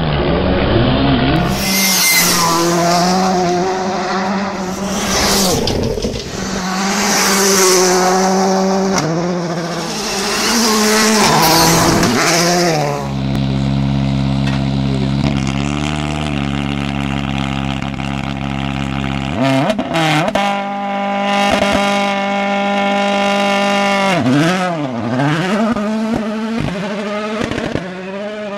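Rally cars' engines revving hard, pitch climbing and dropping again and again with gear changes. Midway the engine holds a steadier note with a deep rumble, then runs at a high steady pitch, dips about 25 seconds in and climbs again.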